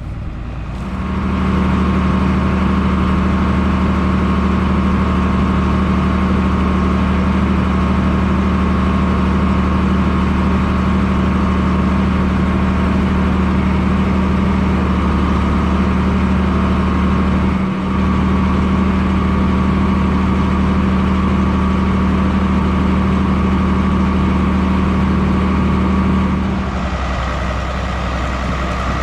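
Tractor engine running steadily while pulling a baler through corn stalks, a constant low hum. It builds up in the first second, dips briefly about two-thirds through and eases a little near the end.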